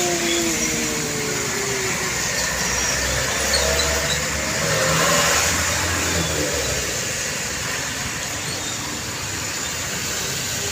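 Road traffic passing: a truck's engine rumble swells about three seconds in, peaks around five seconds and fades by seven, over a steady hiss of tyre and road noise. A falling tone left over from a passing vehicle dies away in the first two seconds.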